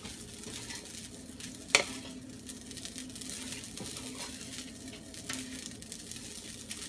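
Wooden spatula stirring and turning fried rice with peas and carrots in a hot frying pan, the rice sizzling lightly under a run of small scraping ticks. One sharp knock of the spatula against the pan comes about two seconds in.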